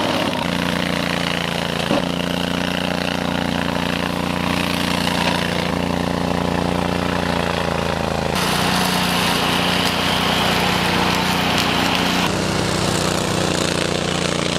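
Honda iGXV800 V-twin petrol engine of a Stella URS100 tracked rotary mower running steadily at working speed while the mower cuts through brush. The engine note changes abruptly about eight seconds in and again near the end.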